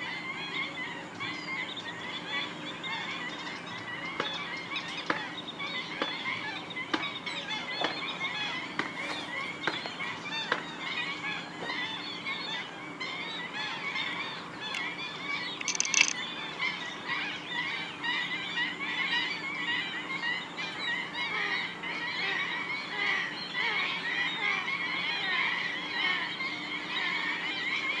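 A flock of black-winged stilts calling: a dense, continuous chorus of short, overlapping high calls, with one sharp, louder note about halfway through.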